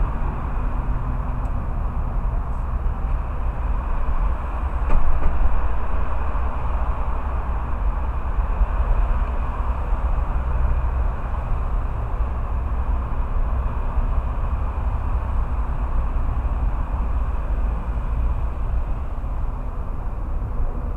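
Wind buffeting the camera's microphone: a steady low rumble, with a louder gust about five seconds in.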